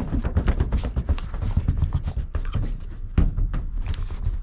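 A small dog's paws scrambling and scratching on a rug laid over a metal truck hood, with a hand patting the rug: a quick, irregular run of thumps and scuffs.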